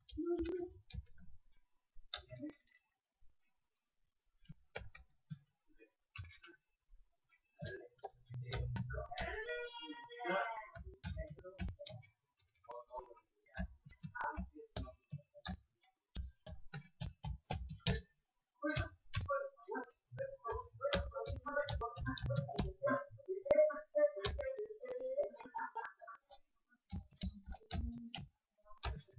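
Irregular clicking of a computer mouse and keyboard, single sharp clicks with short quick runs.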